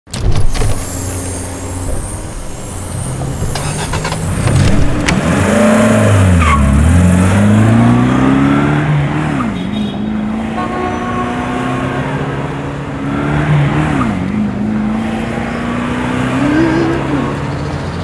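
Car engine accelerating over road noise, its pitch climbing steadily and dropping back three times, as through gear changes.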